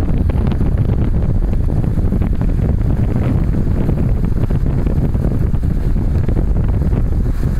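Heavy wind rumble on the microphone of a camera held out of a moving car, steady throughout, with the car's road noise underneath.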